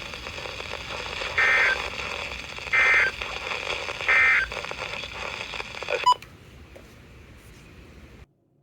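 NOAA Weather Radio sending three short bursts of EAS end-of-message data tones, about 1.4 seconds apart, over radio hiss, marking the end of the severe thunderstorm warning. A sharp click follows just after 6 seconds as the transmission drops, then fainter hiss that cuts off near the end.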